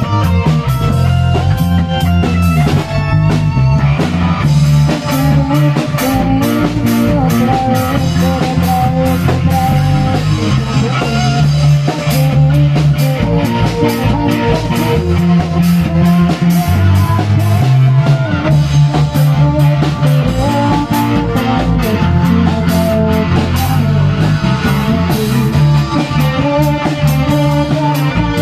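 Small rock band playing live: electric guitar, electric bass, drum kit and keyboard together, with a steady drum beat and a strong bass line.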